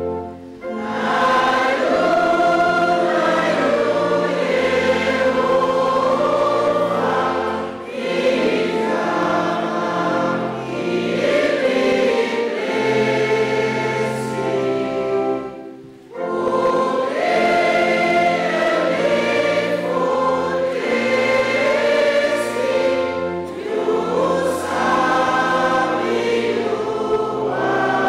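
A congregation singing a hymn together, with steady low held notes from a pipe organ underneath; the singing pauses briefly a little past halfway and starts the next verse.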